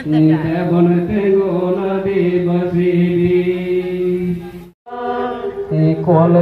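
A male voice chanting in long, held notes that step between a few pitches, amplified through a microphone. The chant cuts off abruptly for a moment near the end, then resumes.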